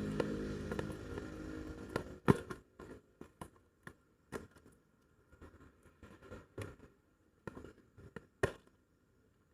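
Cardboard and plastic packaging being handled and pried open: scattered sharp clicks and taps with quiet gaps, the loudest about two seconds in and again near the end. A humming sound fades out in the first second.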